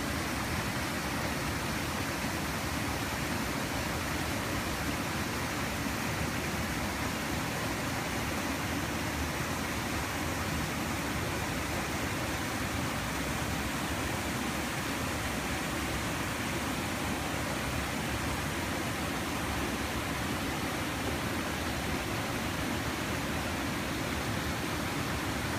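Stream water flowing: a steady, unbroken rush of running water.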